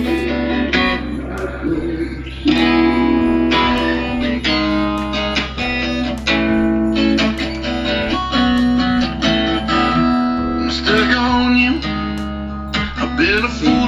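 Guitar-led music backtrack playing through a Bluetooth karaoke microphone's built-in speaker.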